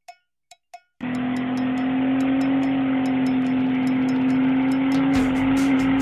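A few sharp ticks, then about a second in a car engine cuts in abruptly, held at steady high revs during a tyre-smoking burnout, with a fast ticking beat over it.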